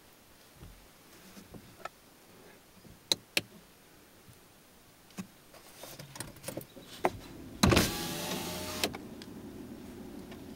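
Scattered knocks and clicks of ponies rubbing against a car's door, window and wing mirror, then, about eight seconds in, a car's electric window motor whirs loudly as the side window lowers, settling into a steadier hum.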